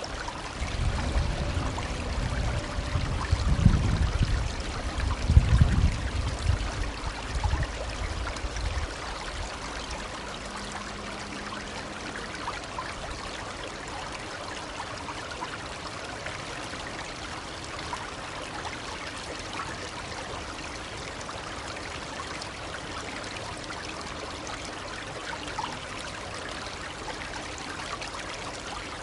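Shallow stream babbling and trickling steadily. For the first several seconds a low rumble sits underneath, loudest about four and six seconds in, then dies away.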